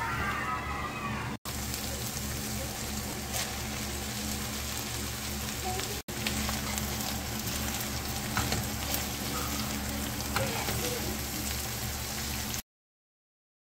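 Corned beef, snow peas and onion sizzling in a frying pan while being stirred, with a few sharp taps and scrapes of a spatula against the pan. The sound breaks off briefly twice and cuts out just before the end.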